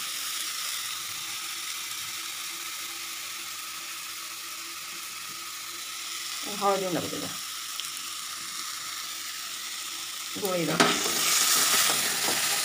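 Spiced masala paste frying in hot oil in a kadai, a steady sizzle. About ten seconds in, a wooden spatula starts stirring and scraping it around the pan, and the sound grows louder and rougher.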